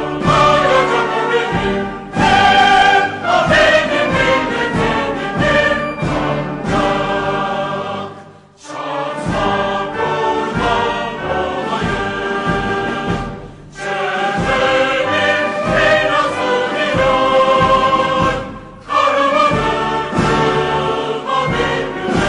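Recorded choral music: a choir singing with orchestral accompaniment, with short breaks about eight, fourteen and nineteen seconds in.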